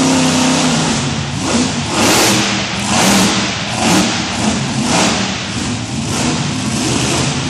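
Monster truck engine revving hard in repeated surges, about one a second.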